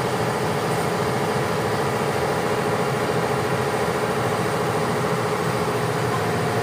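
Steady drone of running machinery in a ship's engine room: a dense, even hum holding several steady pitches, with no change in level.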